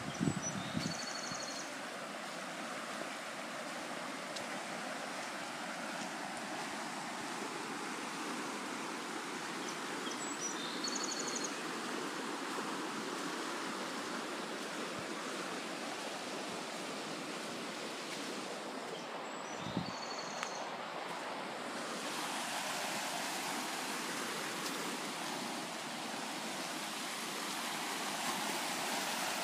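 Steady rush of snowmelt floodwater running, louder and brighter over the last several seconds. Three faint short high chirps come about ten seconds apart, and there is a soft knock a little past the middle.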